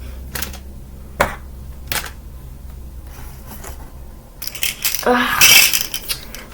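Toys being handled and put into a bin: a few light knocks, then a louder clatter and rustle from about four and a half seconds in.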